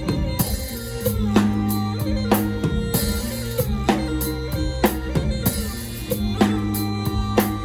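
Mor lam band playing a lam phloen groove, the drum kit up front with regular kick and snare strokes over held low notes and other instrument lines.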